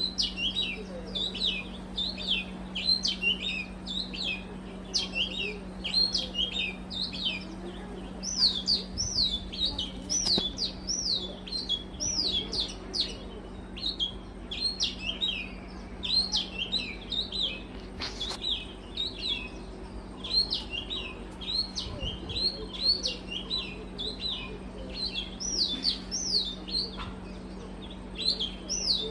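Small birds chirping busily and continuously, quick high notes following one another several times a second, over a steady low hum.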